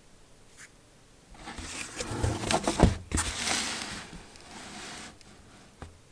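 Cardboard box being handled and shifted, rustling and scraping with many sharp clicks for about four seconds, loudest near the middle.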